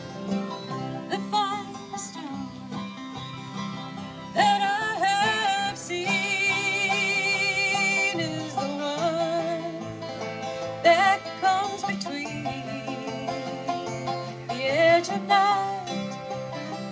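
Acoustic folk band playing an instrumental break on banjo and acoustic guitars. From about four seconds in, a held, wavering melody line rises over the strummed chords.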